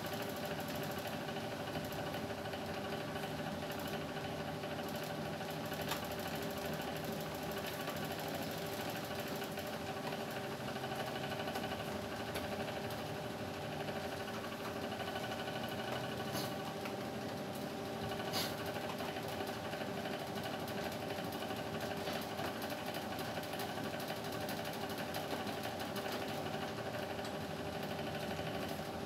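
Wall-mounted split air conditioner's indoor unit running: a steady motor hum with several steady tones, and a few light clicks as its plastic panel and louvers are handled.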